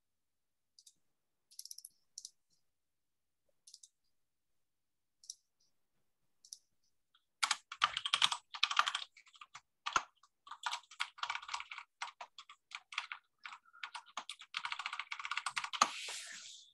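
Typing on a computer keyboard, picked up by a video-call microphone: a few scattered keystrokes at first, then fast continuous typing from about seven seconds in.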